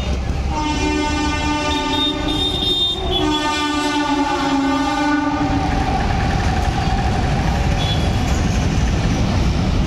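Horn of twin WAG-5 electric locomotives sounding two long multi-tone blasts, each about two and a half seconds, then the steady rumble of a freight train running through the station at speed.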